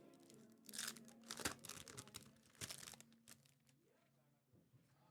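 Foil trading-card pack wrappers and cards being handled, crinkling in about three short bursts during the first three seconds.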